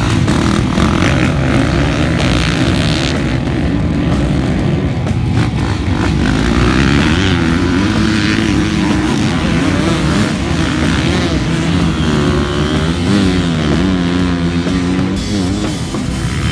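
Several dirt bikes revving hard and accelerating away at a race start, engine pitch rising and falling, mixed with rock music.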